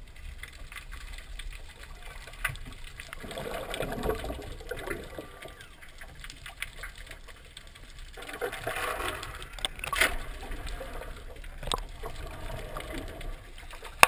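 Muffled underwater noise picked up by a submerged camera: a steady low rumble with scattered clicks and knocks, and two louder stretches of hazy, muffled sound about three and eight seconds in.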